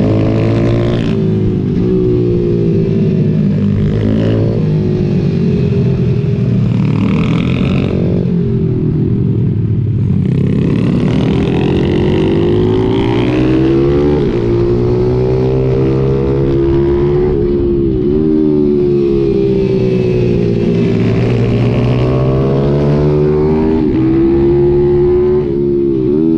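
Single-cylinder four-stroke pit bike engine heard on board while racing, its pitch climbing as the rider accelerates and dropping sharply each time he shuts the throttle or shifts for the next corner, several times over.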